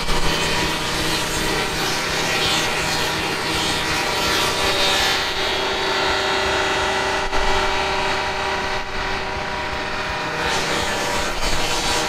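Fully electric automated swingblade sawmill's circular blade cutting through a gum beam: a steady motor and blade whine under a sawing hiss. The hiss drops away about ten seconds in while the whine carries on.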